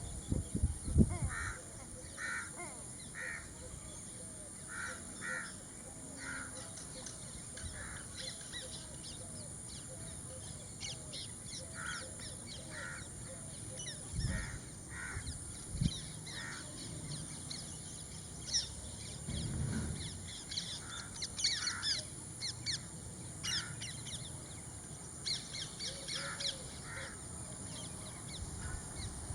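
Crows cawing repeatedly in short calls, with smaller birds chirping, over a steady high hiss; a few low thumps about a second in.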